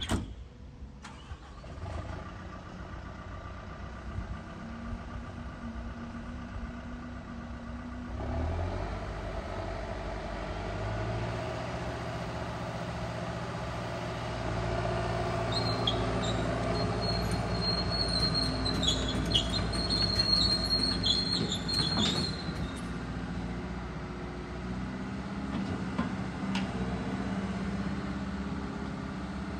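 Volvo ECR145D excavator's diesel engine running, stepping up in level and pitch about eight seconds in as it is throttled up, while its hydraulics raise and swing the boom. High-pitched squeals come on and off about halfway through.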